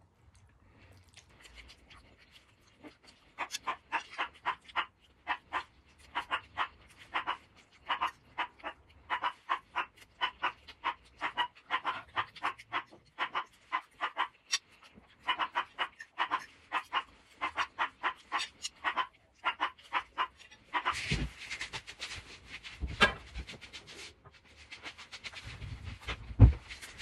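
A small dog panting quickly and evenly, about three to four breaths a second, starting a few seconds in. Near the end the panting gives way to louder rustling and a few low thumps.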